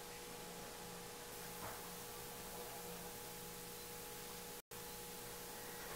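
Faint steady hiss with a low constant hum, the recording's own background noise, broken by a brief cut to dead silence about four and a half seconds in.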